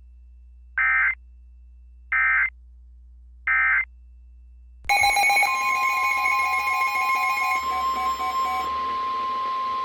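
Emergency Alert System SAME header bursts: three short, identical digital data squawks about 1.3 s apart over a faint hum. About five seconds in, the long, steady alert attention tone begins, with other tones layered over it.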